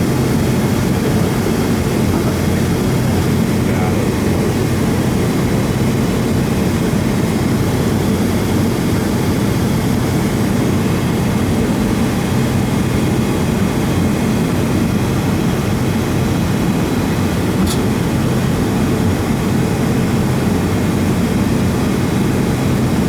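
Steady low rumble inside the cabin of a Boeing 757 taxiing with its jet engines at idle, with one brief faint high tick about eighteen seconds in.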